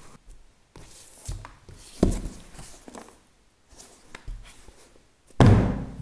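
Cardboard box being handled and set down on a tabletop: a few dull thunks, the loudest near the end.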